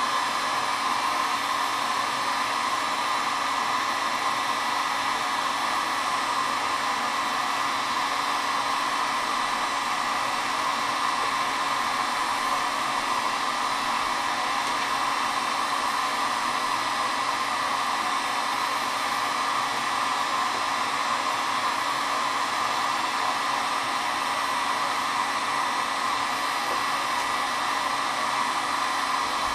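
Electric heat gun blowing steadily, heating a short section of acrylic tube to soften it for bending.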